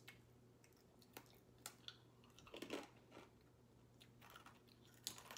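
Faint chewing of crispy black sesame and cinnamon swirl cookies: a few scattered soft crunches over a low steady hum.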